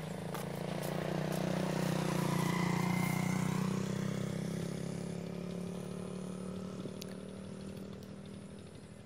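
An engine running with a steady hum that grows louder over the first few seconds and then slowly fades, like a motor vehicle passing.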